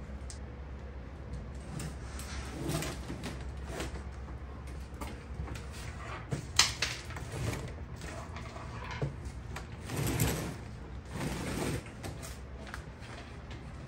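A leaded stained glass panel being turned over and set down on a workbench, then shifted about on the paper-covered tabletop: irregular scraping and rustling, with a sharp knock about halfway through and longer scrapes near the end.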